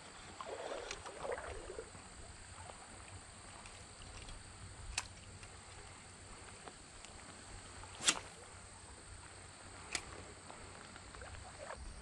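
Faint outdoor creekside ambience with three short, sharp clicks, about five, eight and ten seconds in, the middle one the loudest.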